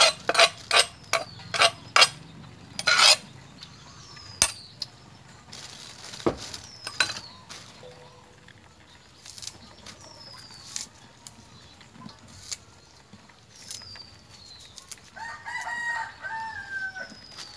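A quick series of sharp knocks, a clay mortar tapped against a steel mixing bowl as chili dip is emptied from it. Near the end a rooster crows once, for about two seconds.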